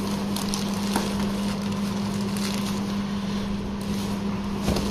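A cardboard shipping box being handled and slid out of a plastic courier mailer: soft rustling and scraping with a few light knocks, over a steady low hum.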